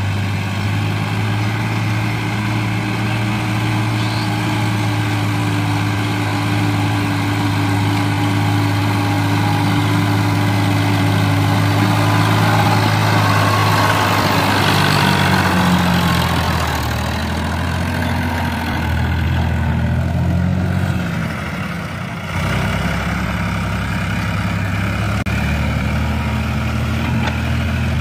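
Sonalika tractor's diesel engine running under load as it pulls a trolley loaded with sand. The engine note holds steady at first, then rises and falls in the second half as the engine speed changes.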